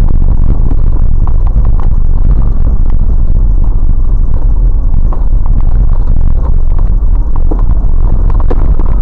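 Vehicle driving on a rough, muddy dirt road, heard from inside the cab: a loud, steady low rumble of engine and tyres, with scattered small knocks and rattles.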